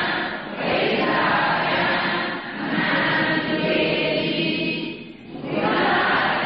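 A group of voices chanting Buddhist Pali verses in unison, in phrases of two to three seconds with short breaks between them.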